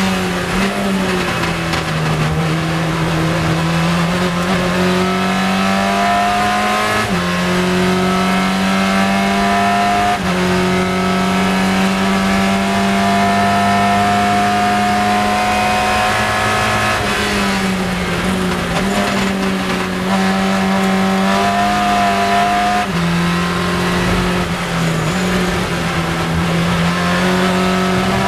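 Lola sports racing car's engine heard from the cockpit at racing speed, held at high revs with its pitch stepping abruptly up and down several times as gears change, over wind and road noise.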